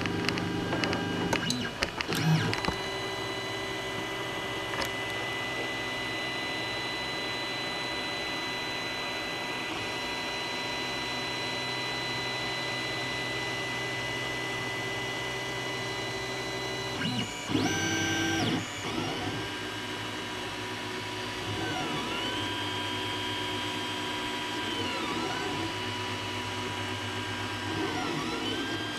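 Creality Ender 3 Pro 3D printer running a print job: a steady electric whine for the first half, a short clatter a bit past halfway, then stepper motors driving the axes, their whine rising in pitch, holding, and falling again every couple of seconds.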